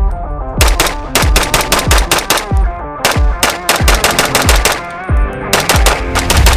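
CMMG Dissent AR pistol firing fast strings of shots with brief pauses between them, cycling without a stoppage now that it has its replacement production barrel. Background music plays underneath.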